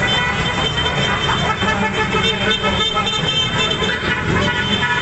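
Many motorcycles and scooters riding past in a motorcade, engines running together, with horns tooting over them.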